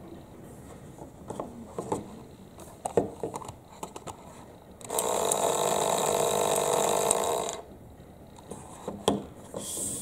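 Small battery-powered toy washing machine's motor whirring steadily for about two and a half seconds, starting about halfway through and cutting off suddenly. Before and after it come light clicks and knocks of the plastic toy being handled.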